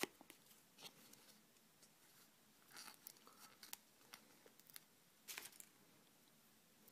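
Faint handling noises of play dough and plastic toys being worked by hand: scattered light clicks and short crinkly rustles, with two brief busier flurries, about three seconds in and again about five and a half seconds in.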